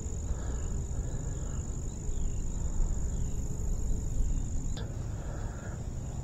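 Insects trilling steadily on one high note, over a low rumble on the microphone, with a single sharp click about five seconds in.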